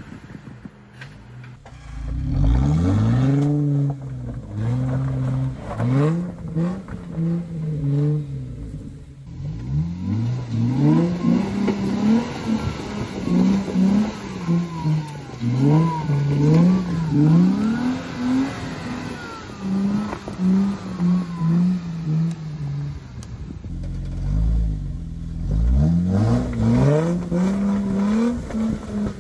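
Jeep Wrangler rock crawling: the engine revs up and falls back again and again in short throttle bursts as the Jeep works its way over the rocks, with a couple of brief lulls.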